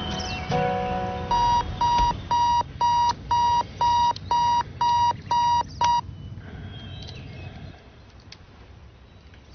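Electronic alarm clock beeping, about two short high beeps a second, then cutting off suddenly about six seconds in.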